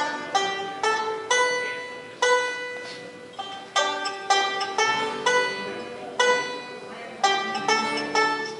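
Bluegrass band of acoustic guitars, fiddle, banjo and bass playing an instrumental introduction, sharply picked notes ringing out one after another before the singing comes in.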